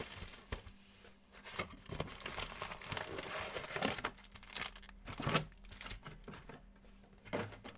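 Basketball trading card packs being torn open by hand, their wrappers crinkling and tearing in irregular bursts.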